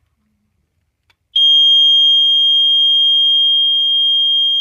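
Sears smoke detector's piezo horn sounding its test alarm as one loud, steady, high-pitched continuous tone, not beeping, starting about a second and a half in.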